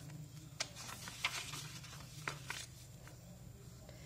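Pages of a thin paperback picture book being turned and pressed flat on a wooden table: a few faint paper rustles and soft taps, over a low steady hum.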